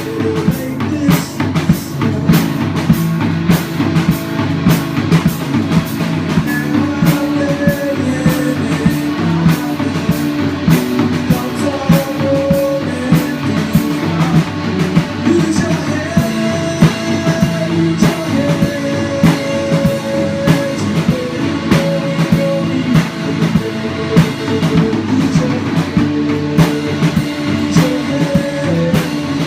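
Band playing a rock song: guitar over a steady drum-kit beat.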